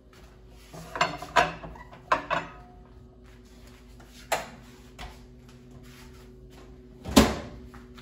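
Glass Pyrex baking dish scraping and knocking against the microwave's glass turntable as it is lifted out, then a sharp click about four seconds in and a loud thud near the end, over a faint steady hum.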